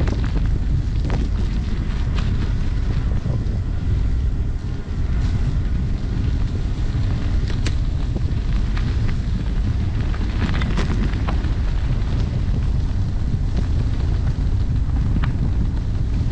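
Wind buffeting the microphone of a GoPro action camera during a bike ride, a steady low rumble, with a few sharp clicks and rattles from riding over the gravel path.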